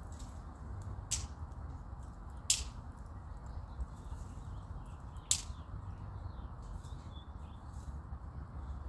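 Twigs burning in a folding stainless steel wood-burning camp stove, crackling with a few sharp pops, about one, two and a half and five seconds in, over a low steady rumble.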